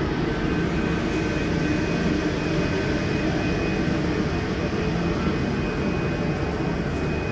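A passenger ferry's diesel engine running under way as the boat pulls away from the pier: a steady low rumble with a faint, steady high whine over it.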